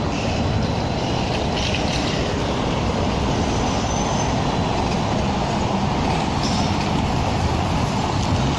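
Steady street traffic: cars, a van and a minibus driving past, a continuous rumble of engines and tyres on the stone-paved road.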